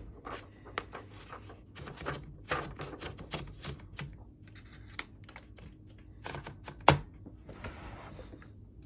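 1934 Corona Silent portable typewriter being worked, giving irregular mechanical clicks and clacks from its keys and levers, with one sharp clack about seven seconds in.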